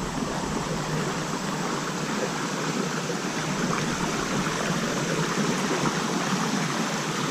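Creek water rushing steadily, a constant even noise from the stream running high.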